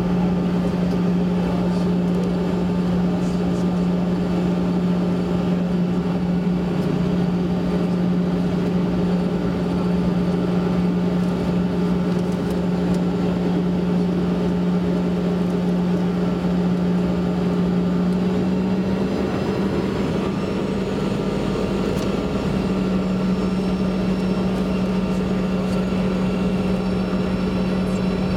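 Cabin noise of a Canadair Regional Jet taxiing: the steady hum of its rear-mounted General Electric CF34 turbofans at low power, with a strong low drone. About two-thirds of the way through, the drone's pitch rises slightly and a deeper rumble grows.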